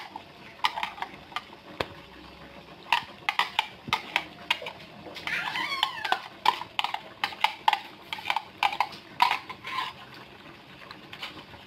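Wooden spatula stirring a wide metal pan of coconut-milk broth with vegetables and fish, giving a string of sharp clacks and scrapes against the metal. About five seconds in, a brief wavering high-pitched cry sounds over the stirring.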